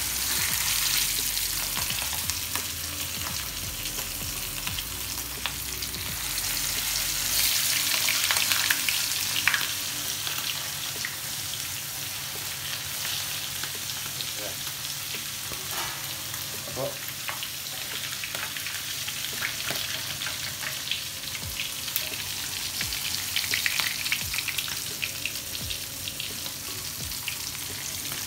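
Masala-marinated seer fish (ayakoora) steaks sizzling in hot oil in a frying pan, with a steady hiss that swells each time another piece is laid into the oil.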